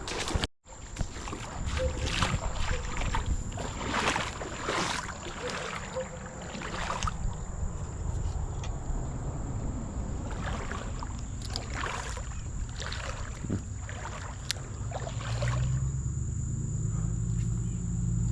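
Water splashing and sloshing in a shallow creek in irregular bursts, over a low rumble and a steady high whine.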